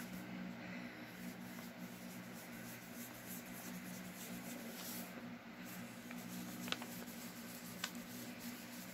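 Faint scratchy rubbing of a round ink blending tool being dabbed and swept across paper, over a steady low hum, with a couple of small ticks in the second half.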